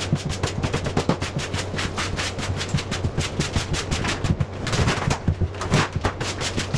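Vacuum cleaner running over a debris-covered subfloor, with rapid, irregular clicking and rattling as grit and crumbs are sucked up through the nozzle and wand.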